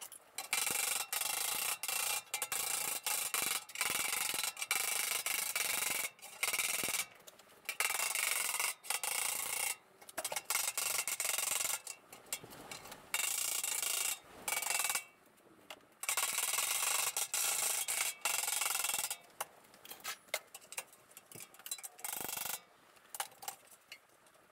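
An abrasive tool rubbing over a sheet-steel VW engine lid in repeated scratchy passes of a second or two, stopping and starting with short gaps.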